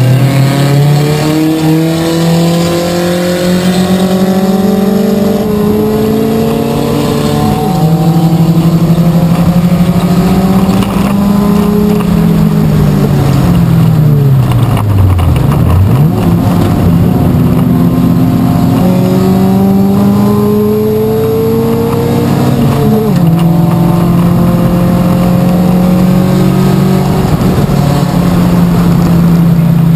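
Race car engine heard from inside the stripped cabin, running hard under load: the revs climb and drop sharply at each upshift several times, fall away about halfway through as the car slows, then climb through the gears again.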